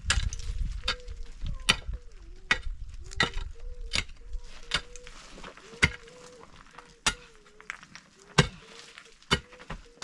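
Mattock blade striking stony ground again and again, a sharp metallic chink about once a second as it bites into rock and gravel. A faint, thin wavering tone carries on underneath.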